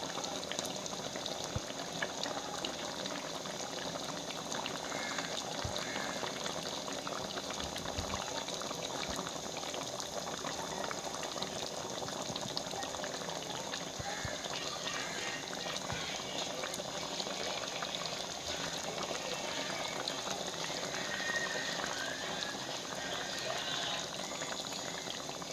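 Chicken curry simmering in a pot, bubbling and popping steadily.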